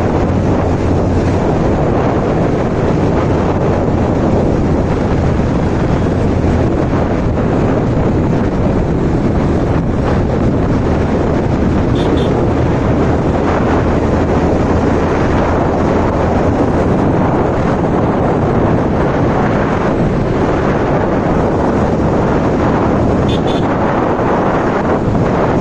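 Heavy wind buffeting on the microphone of a moving motorbike, over the steady hum of its engine and the surrounding road traffic.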